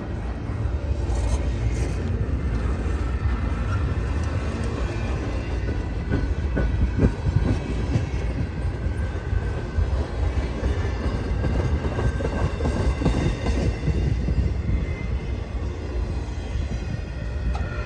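Norfolk Southern freight train rolling by slowly, its cars' wheels clicking over the rail joints with a steady rumble.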